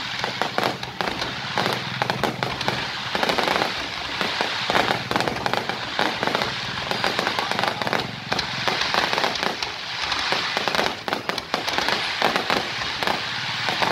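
Aerial fireworks bursting overhead: a dense, unbroken crackle of many rapid pops and bangs.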